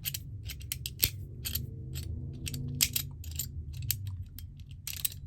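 Hand-cast brass key being worked in an antique cabinet lock: a run of irregular metallic clicks from the key and lock mechanism, over a low steady hum.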